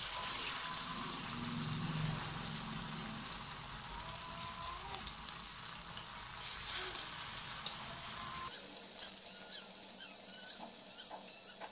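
Sabudana and potato patties deep-frying in hot oil in a steel kadai over a high flame: steady sizzling and crackling. It flares up about six and a half seconds in, as another patty is slipped into the oil.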